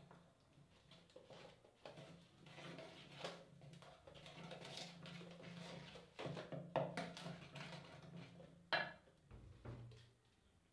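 Wooden spoon stirring a wet banana, egg and sugar batter in a stainless steel pot: soft, irregular scrapes and taps against the metal, with one sharper knock near the end.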